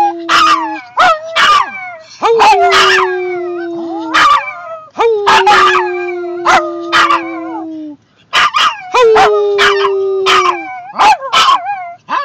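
A Maltese puppy and a larger dog howling together. Long, level howls of about two seconds each come again every three seconds or so, with higher, wavering yips and howls over and between them.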